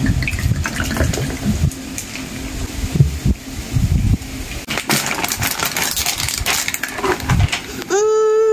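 A carbonated Smirnoff Mule is poured from its glass bottle over ice into a glass, splashing and fizzing as it foams up. Near the end a loud howl-like tone rises and then holds steady, the loudest sound here.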